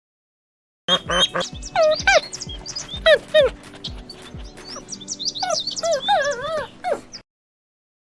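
A run of high, gliding animal calls, each bending down or wavering in pitch, over background music; it starts about a second in and cuts off near the end.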